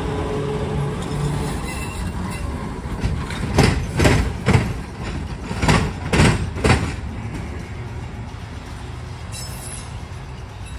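Rail wheels clacking over a track crossing: six sharp clacks in two groups of three, the second group about two seconds after the first, over a steady low rumble.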